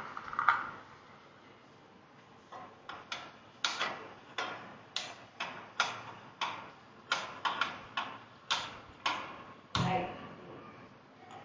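Gas stove burner being lit with a hand-held spark lighter: a run of about twenty sharp clicks, two or three a second, followed by a duller knock near the end.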